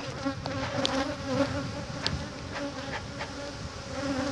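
Honeybees buzzing around an opened hive: a steady droning hum, with a few faint clicks about one and two seconds in.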